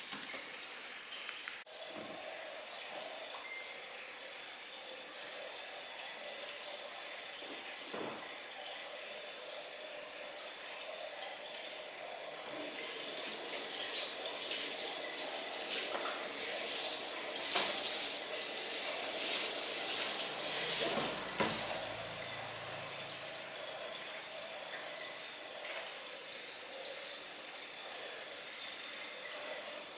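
Water running from a salon shampoo-basin tap and splashing over hair during a rinse. It is a steady hiss that grows louder for several seconds midway.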